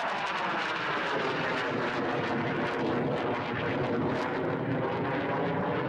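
Hawker Hunter single-engine jet flying overhead in a display: a steady, continuous jet engine rush, its pitch sliding slightly downward near the start as it passes.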